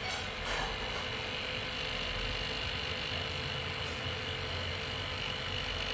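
A cooler running noisily: a steady whir with a constant high-pitched whine over a hum, broken by two brief ticks.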